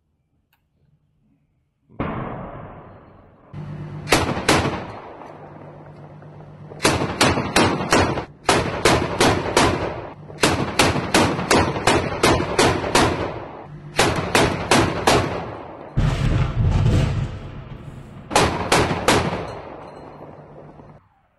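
Bursts of automatic gunfire, each a run of several rapid shots at about four a second, with a steady low hum underneath. The gunfire starts with a heavy bang and fading rumble about two seconds in, and there is a loud low rumble about sixteen seconds in.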